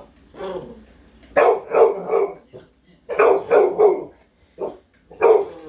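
American Bully dog barking on the "speak" command: a string of short barks, mostly in quick runs of three, with single barks near the end.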